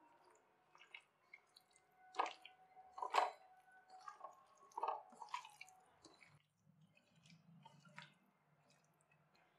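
A bare hand squeezing and mixing chicken pieces in a wet spiced curd marinade with dry flour in a bowl: irregular soft squelches, loudest about two, three and five seconds in.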